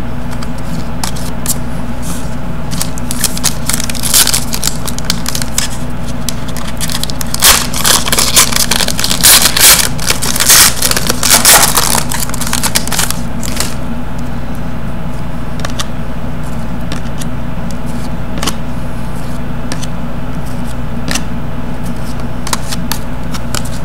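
Trading cards being flipped and sorted by hand, with light clicks, then a spell of loud crackling from a foil card-pack wrapper being crinkled, from about seven to thirteen seconds in. A steady low hum runs underneath.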